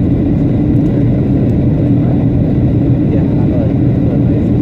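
Steady, low drone of an airliner's engines and airflow, heard from inside the passenger cabin in flight.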